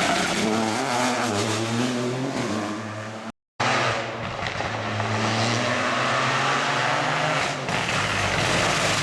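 Rally car engines at speed on a special stage, the pitch rising and falling with throttle and gear changes. The sound breaks off for a moment about a third of the way in, then another car's engine follows, its pitch climbing steadily.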